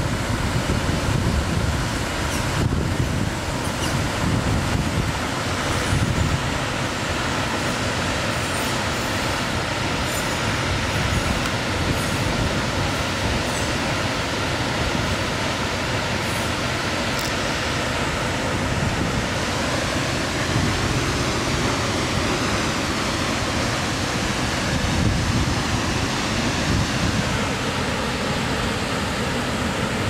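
Steady rush of a large waterfall pouring into a river pool: an even, unbroken wash of falling water.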